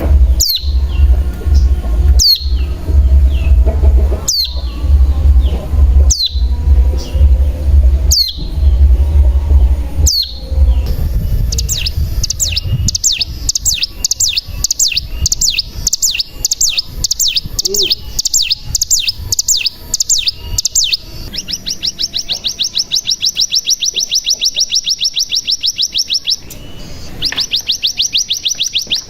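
Ciblek gunung (a prinia) singing: first single sharp down-slurred calls about every two seconds over a low hum. It then breaks into a fast series of high notes and, near the end, a very rapid continuous trill, the "ngebren" song that the recording is meant to trigger in other birds.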